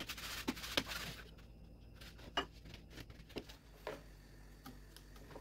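Semolina grains rustling through the mesh of a wooden-rimmed drum sieve as it is shaken over a wooden bowl, with small clicks. About a second in the rustling stops, leaving a few separate light clicks and taps.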